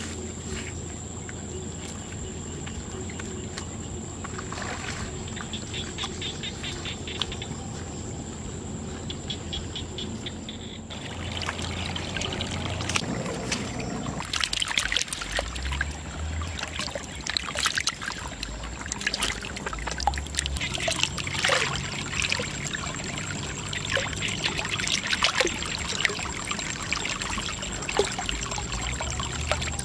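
Water pouring and splashing out of two pipes set in a mud dam into a basket fish trap, with many small splashes. It starts about halfway in, after a quieter outdoor stretch with faint rapid ticking.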